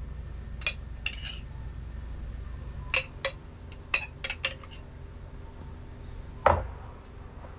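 Kitchen utensils clinking against a bowl and dishes: scattered sharp taps and clinks in small clusters, then one louder knock about six and a half seconds in.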